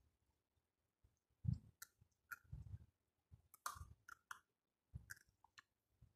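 Faint sounds of eating rice and curry by hand: chewing and mouth clicks, irregular and scattered, with a few soft low thumps, the loudest about one and a half seconds in.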